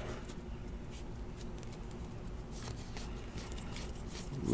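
Faint scattered clicks and rustles of trading cards being handled and slid through the hands, a few soft ticks spread over several seconds.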